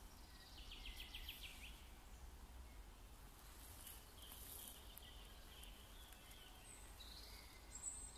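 Near silence in a forest with faint small-bird calls: a quick trill about a second in, a fainter trill around the middle, and a few high chirps near the end, over a low rumble.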